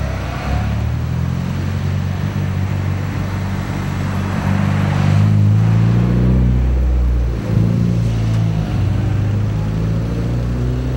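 A motor vehicle's engine running close by, a deep steady hum that shifts in pitch, swells louder about halfway through and drops back near eight seconds in.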